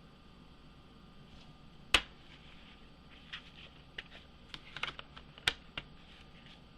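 Packaging of a collector's edition box set being handled and opened: one sharp click about two seconds in, then a scattering of small clicks and taps.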